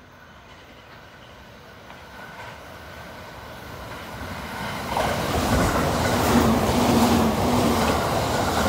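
E657 series limited express passing through a station at speed without stopping. Its rumble builds steadily as it approaches, then from about five seconds in comes the loud rush of the cars going by close at hand, with repeated clacks of wheels over rail joints and a steady hum.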